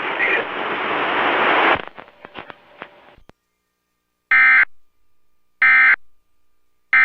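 Emergency Alert System end-of-message data bursts: three short, identical warbling digital tone bursts about a second and a half apart, the third arriving at the very end. They follow a loud hiss that cuts off about two seconds in and a few crackles.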